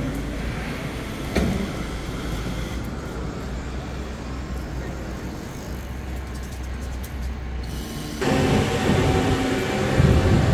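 City street ambience: a steady low rumble with a single knock about a second and a half in. About eight seconds in, the background switches abruptly to a louder one with a steady hum and a thump near the end.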